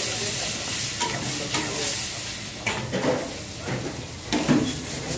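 Chicken and tomatoes sizzling in a steel karahi wok over a gas flame, with a steady hiss. Metal utensils scrape and clink against the wok as it is stirred, a few times, the loudest clink near the end.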